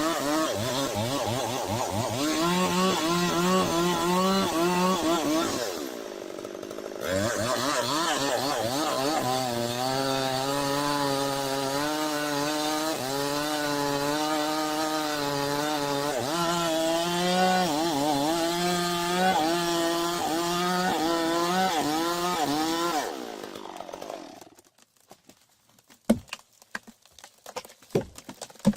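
Chainsaw running at high revs while cutting wood, its pitch wavering as the chain bites. It drops off briefly about six seconds in, picks up again, and dies away near the end, followed by a few sharp knocks.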